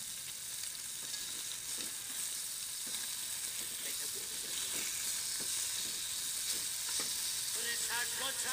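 Pieces of catla fish frying in hot oil in a wok, a steady sizzle, with light taps and scrapes of a spatula as they are turned. A tune comes in near the end.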